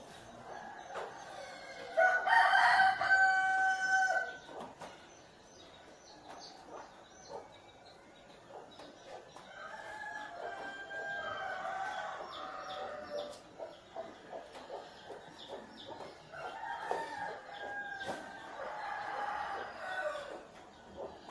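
Rooster crowing three times. The first crow, about two seconds in, is the loudest; two fainter, longer crows follow later.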